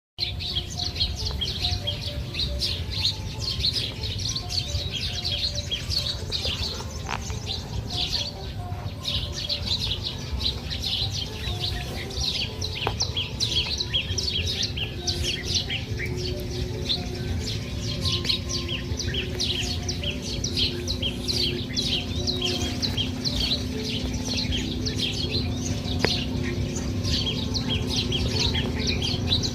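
Many small birds chirping together, with dense, rapid high chirps overlapping without a break, over a low steady rumble.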